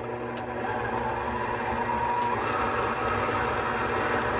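Electric mixer motor running steadily, mixing the roll dough; its hum builds over the first second and then holds at an even pitch.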